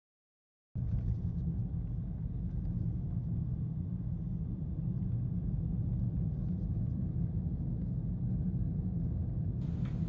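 Steady low road rumble of a car being driven, heard from inside the cabin; it cuts in suddenly just under a second in after a moment of silence.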